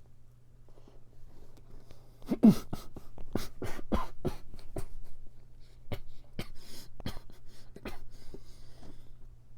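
Close-miked mouth sounds of eating a sugar-dusted tart: a short throat sound about two seconds in, then a run of sharp smacks and clicks.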